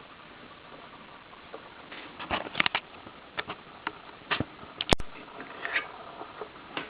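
Irregular light clicks and taps, several close together in the middle, with one sharp click about five seconds in.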